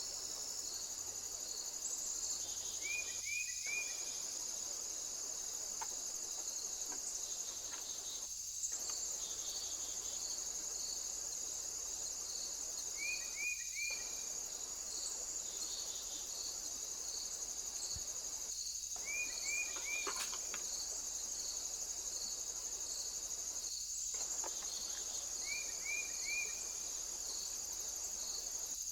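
Crickets and other insects chirring steadily, with evenly repeating chirps under the high hum. A short, quick three-note call sounds five times, every five to ten seconds.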